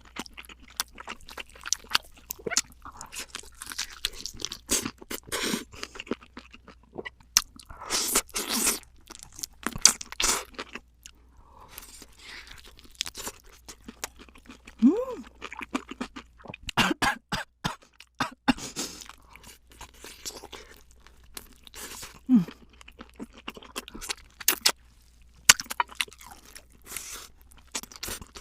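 Close-miked crunching and chewing of crispy fried chicken in a dense, irregular crackle of bites and chews.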